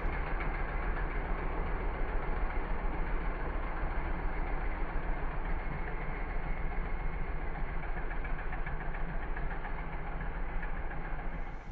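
Engine of a turf utility vehicle carrying a boom sprayer, running steadily as it drives across a putting green spraying.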